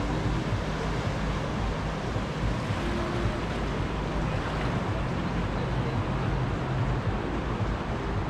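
Turbulent whitewater rushing and churning through an artificial whitewater slalom channel, a steady even rush.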